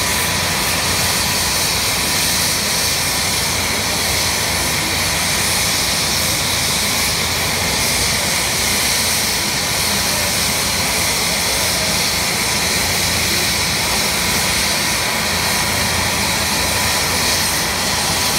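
AH-64 Apache helicopter running on the ground with its main rotor turning, its twin turboshaft engines and rotor making a loud, steady whine and rush that does not change.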